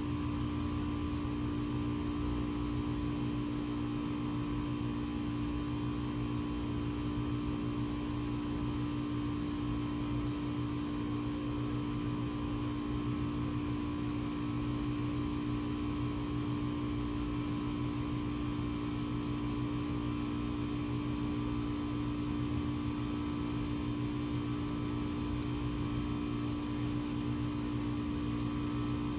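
A steady hum with one strong low tone and several fainter tones above it, like a running fan or motor.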